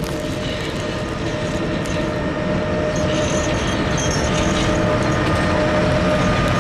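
Train passing close by on the track: a steady rumble of wheels on rails that grows louder, with a thin steady whine above it.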